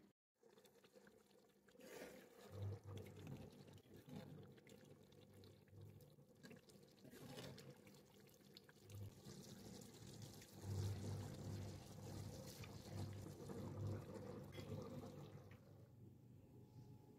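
Faint stirring and ladling of a thick red sauce in a metal pot, the sauce pouring back off the ladle, with a few light knocks of the ladle against the pot.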